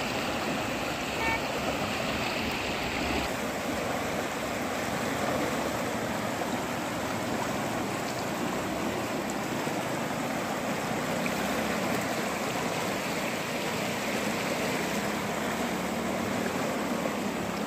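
Swollen, muddy Amu Darya floodwater rushing and churning in standing waves along the bank: a steady rushing of fast water. A higher hiss in it eases about three seconds in.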